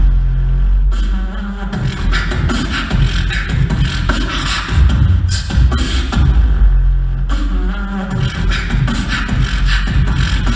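A beatboxer performing into a handheld microphone: deep, held bass tones with fast clicking snare and hi-hat sounds layered on top.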